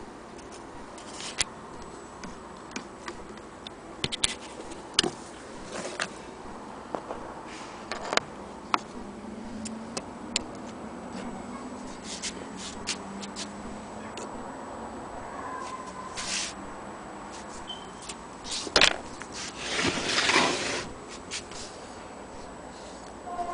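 Hands handling an antique Frister & Rossmann sewing machine and its wooden case: scattered small clicks and knocks of metal and wood parts, with a louder scraping rub about 19 to 21 seconds in.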